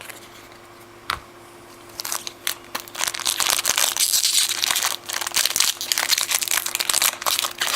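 Foil wrapper of a trading-card pack crinkling as it is pulled open, with a single sharp click about a second in and then about five seconds of dense crinkling.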